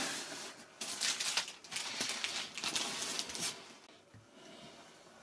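Clear plastic packaging crinkling and rustling as it is handled, in a quick run of crackly bursts that dies down near the end.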